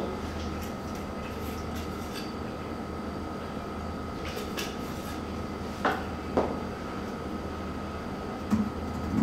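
Quiet room tone: a steady electrical hum with a thin high tone, broken by a few faint short clicks in the middle and a small soft sound near the end.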